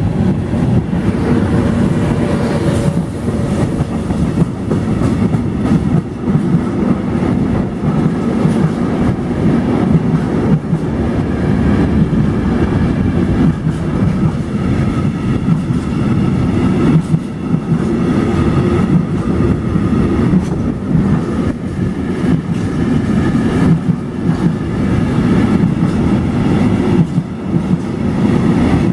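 Freight train passing close: an FS E.652 electric locomotive goes by at the start, then a long string of empty intermodal container flat wagons rolls past, with a steady heavy rumble of wheels on rail and clickety-clack over the rail joints.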